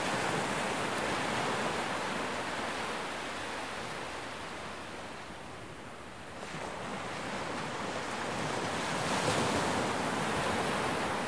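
Choppy sea surf washing and splashing against rocks, with some wind. The wash eases about halfway through and builds again.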